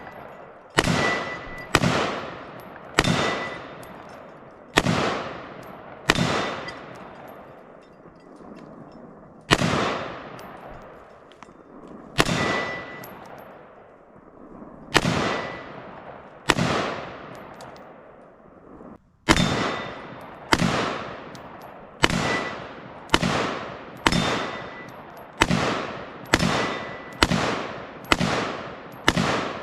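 Radical Firearms AR-15 rifle fired semi-automatically, about twenty single shots, each with an echoing tail. The shots come a second or more apart at first and speed up to about one a second near the end. Several are followed by a short, high metallic ring.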